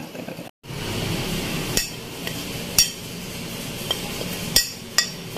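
A spoon knocking and scraping spices off a plate into a glass bowl of mashed potatoes: four sharp clinks, spaced about a second apart, over a steady low background.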